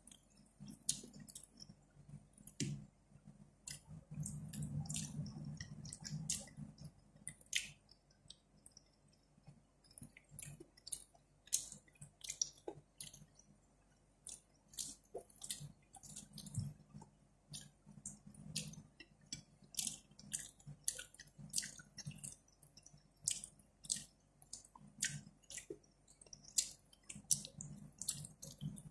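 Wet, sticky eating sounds of lugaw (rice porridge) being squished in the fingers and chewed, an irregular stream of short wet clicks and squelches.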